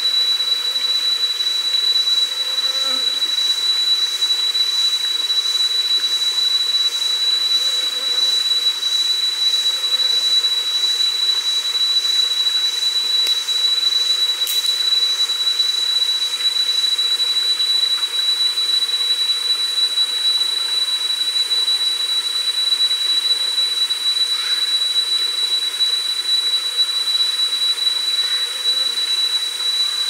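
Forest insects calling: one steady, high-pitched drone that never lets up, and for about the first half a second insect pulsing at a little more than one pulse a second above it.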